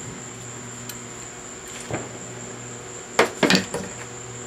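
Metal lathe parts and tools clinking as they are handled and set down: a couple of light clicks, then two or three sharper metal clanks about three seconds in, over a steady low hum.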